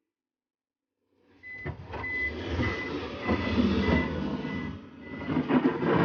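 Case backhoe's diesel engine running hard, with its reversing alarm beeping steadily, about one and a half beeps a second. The sound starts abruptly about a second in.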